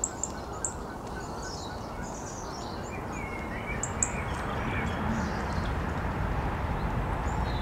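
Wild birds chirping, with a few short sharp high chirps and softer warbling calls, over a steady low outdoor rumble that grows slightly louder about halfway through.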